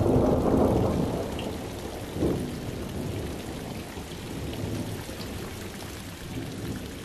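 Rain falling steadily on wet ground and puddles, under a low roll of thunder that is loudest at the start and slowly dies away, with a second, shorter rumble about two seconds in.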